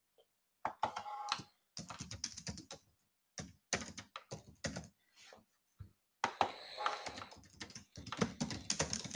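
Computer keyboard typing: bursts of quick keystrokes through the first few seconds and again from about six seconds in, with a short pause between.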